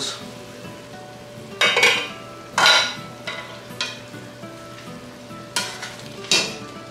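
A utensil stirring and scraping in a pot of cooking chicken soup, with about five short sharp scrapes or clinks spread through, over a faint steady sizzle from the pot.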